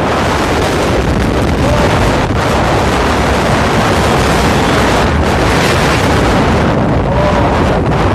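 Loud, steady wind buffeting a phone's microphone as it is carried along in a moving vehicle, with road noise underneath.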